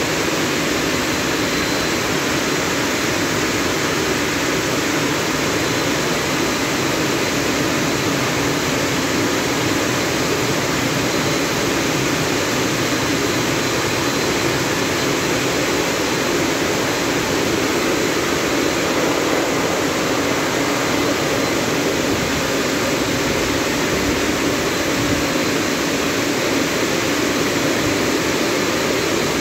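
Rollover car wash drying blowers blasting air over a car: a loud, steady rush of air that holds an even level throughout.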